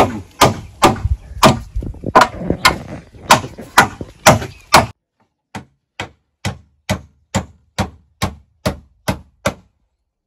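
A steady run of sharp knocks, a little over two a second, like strikes on wood. The background sound drops out about five seconds in while the knocks keep the same even beat.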